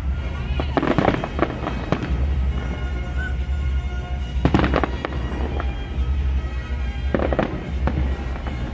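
Aerial fireworks bursting in a quick string of sharp bangs and crackles, the strongest about halfway through, with music playing underneath.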